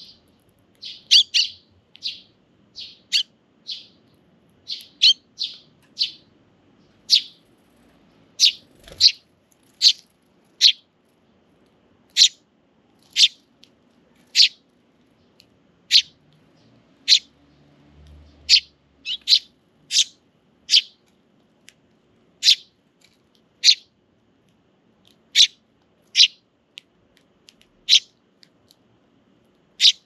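Eurasian tree sparrows chirping: a steady series of short, sharp chirps, about one a second.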